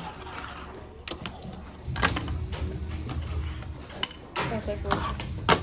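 Fingerboard clacking on a laminate tabletop: several sharp clicks, spaced about a second apart, of the board's tail popping and its wheels landing.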